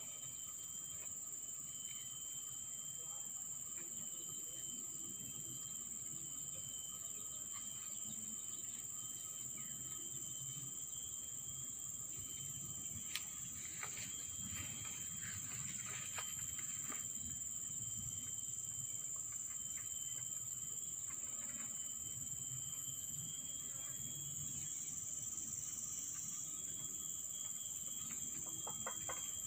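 Insects chirring in a steady, high-pitched drone, with a few faint clicks about halfway through.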